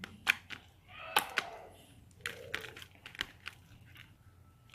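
Slime being squeezed and stretched by hand, giving irregular sharp clicking pops of trapped air bubbles with a few soft squelches in between.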